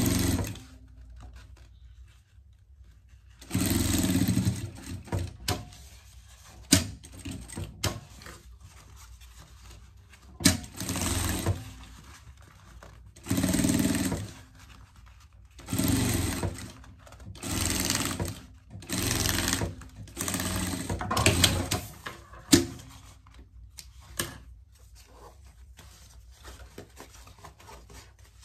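Industrial-style sewing machine stitching in short runs of about a second, seven of them, stopping between runs, with a few sharp clicks in the pauses.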